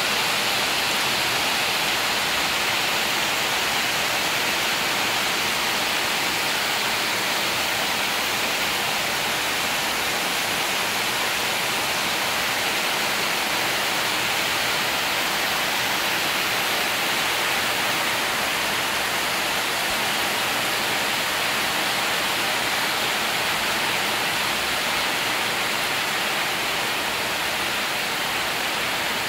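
Heavy rain falling steadily on corrugated tin roofs and foliage, a dense, even downpour with no let-up.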